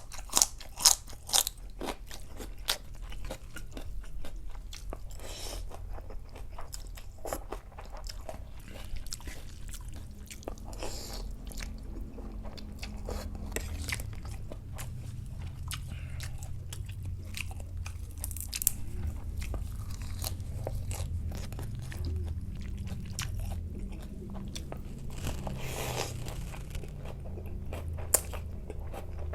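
A person eating close to the microphone: crunching, biting and chewing, with a thick run of sharp crunches in the first couple of seconds and scattered ones after. A steady low hum lies underneath.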